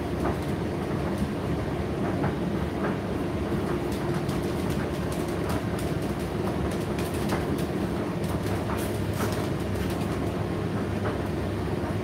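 Indesit IDC8T3 condenser tumble dryer running: a steady rumble of the motor and turning drum with a constant hum, and irregular light clicks from the tumbling load.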